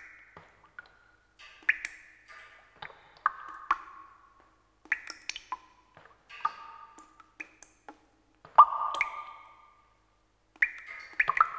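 Sparse, irregular plinking strikes, each a single short pitched note with a brief ring, the loudest about 8.5 seconds in.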